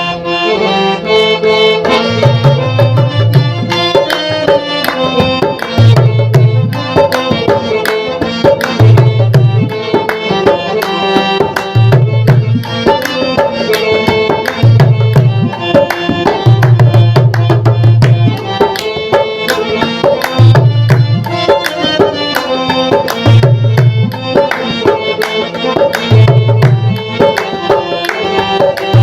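Instrumental music with tabla drumming under a reed-instrument melody, and a low bass note that comes back about every three seconds.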